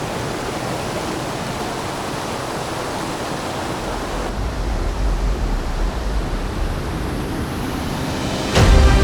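Steady rushing of a waterfall, an even hiss with no distinct events; about four seconds in a low rumble joins it. Music comes in suddenly near the end.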